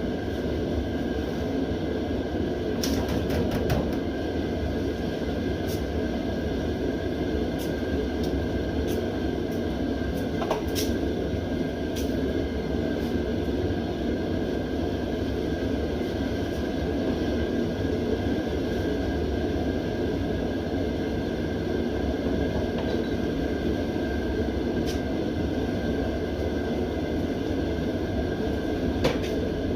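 Mr. Heater propane heater running on high: a steady rushing burner noise with a faint steady whine above it. A few light clicks and knocks come and go over it.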